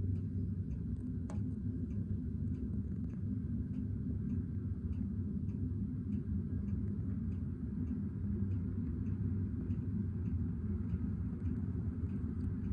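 Freight train passing: a steady low rumble with a faint, regular ticking about twice a second.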